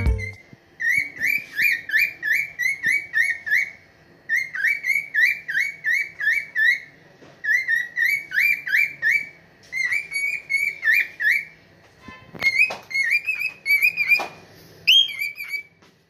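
A cockatiel calling: quick chirping whistles, about three or four a second, in bursts of two to three seconds with short pauses between. A couple of light knocks come in the second half.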